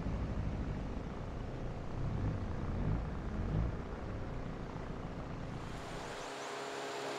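Outboard motor of a long wooden river canoe running, heard from aboard as a steady low drone with some water noise. Its pitch wavers a little in the middle. About six seconds in, the deep drone drops away and a fainter, thinner hiss remains.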